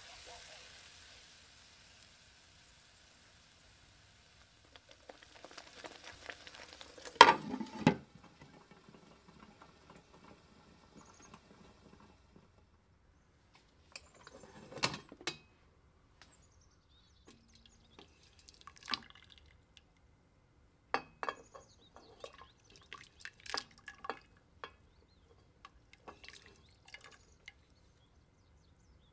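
Tomato sauce sizzling in the pan fades away in the first few seconds. A single sharp knock follows about seven seconds in, then scattered clinks, drips and splashes as cooked chickpeas are scooped out of the pressure cooker with their cooking water.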